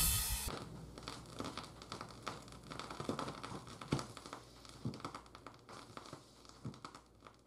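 Vinyl record surface noise from a Shure cartridge's stylus in the groove: scattered irregular crackles and pops over a faint low hum, left after the music cuts off about half a second in, growing fainter toward the end.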